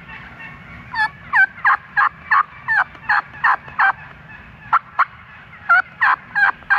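Turkey yelping: a long run of short, loud notes, about three a second, starting about a second in with a couple of brief breaks.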